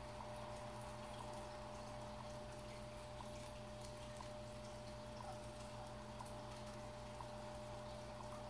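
Quiet room tone: a steady low hum with a thin constant whine, and a few faint scattered clicks.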